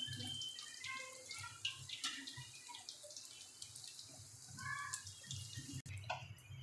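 Vegetable chops deep-frying in hot oil in a kadhai: a faint bubbling with scattered small pops and crackles, the sound dropping away about six seconds in.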